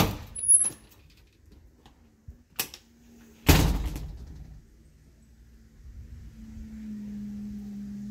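A sticking exterior door knocking as it is forced open, with a brief high squeak, then a heavier thud about three and a half seconds in. A low steady hum comes in near the end.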